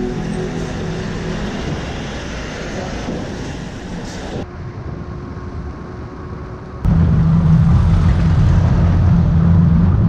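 Steady engine and deck noise on a car ferry, which cuts off abruptly about halfway. Near the end a much louder low rumble of wind on the camera microphone sets in suddenly while cycling along the road.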